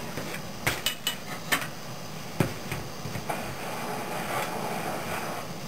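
A handful of sharp metallic clinks as pliers and solder knock against a copper wire frame during soldering, over the steady hiss of a small propane torch.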